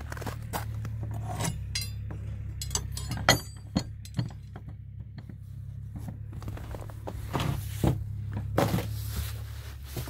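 Metal door latch clinking and clanking as it is worked loose, the loudest clank about three seconds in, then the scrapes and knocks of a heavy wooden door being pulled open.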